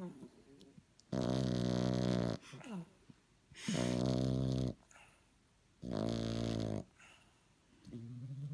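French bulldog puppy snoring in its sleep: three loud low snores, each about a second long, coming about every two and a half seconds, with faint breaths between them and a weaker snore near the end.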